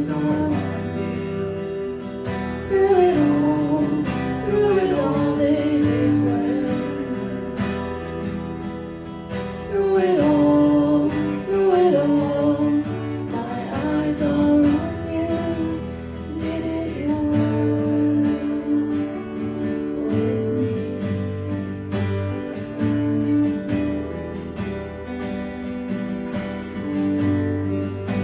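Worship music led by acoustic guitar, with a melody line that bends between held notes.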